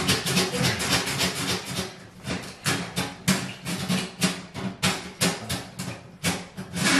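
Hand-held drum auger (drain snake) worked in a bathtub drain: its steel cable rattles and scrapes in quick, irregular clicks, several a second, as it presses against what seems to be an obstruction or a bend in the drain line.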